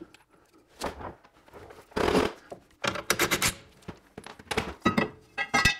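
Irregular knocks, clinks and short scrapes of metal hand tools being handled, with a cluster of light strikes around the middle and again near the end.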